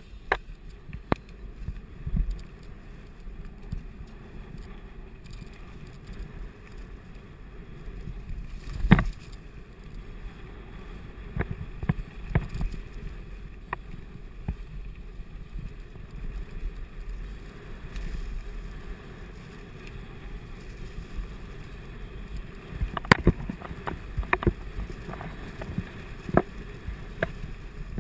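Mountain bike rolling fast down a rough dirt forest trail, heard from a camera on the bike or rider: a steady rumble of tyres and wind, broken by sharp knocks and rattles as the bike hits bumps. The loudest knocks come about nine seconds in and around twenty-three seconds.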